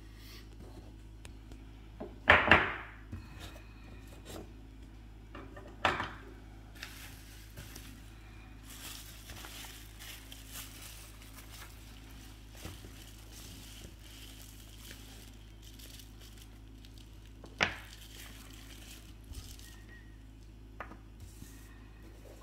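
Small miniatures and their packaging being handled: bubble wrap and a plastic bag crinkling, with three short sharp crackles or clatters, the loudest about two seconds in, another near six seconds and one near eighteen seconds.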